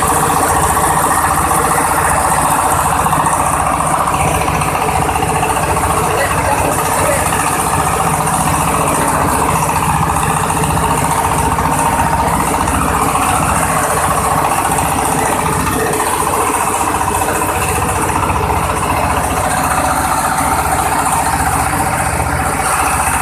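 Oil palm frond chopper machine running steadily under its engine, a constant mechanical drone with rapid low pulsing.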